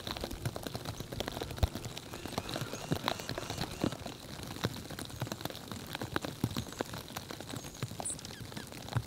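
Storm precipitation pattering on surfaces in dense, irregular ticks, with one brief high peep about eight seconds in.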